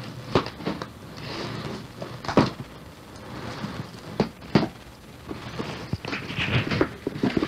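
Irregular knocks and rustling from a cardboard gift box being handled and opened, with a quicker run of knocks near the end.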